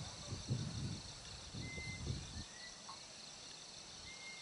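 Crickets chirring steadily in a night insect chorus. A low, uneven rumbling noise sounds through the first two seconds, and a few short high peeps come later.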